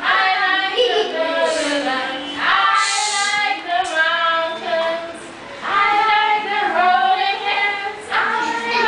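Children singing a song, in phrases of two to three seconds with short breaks between them.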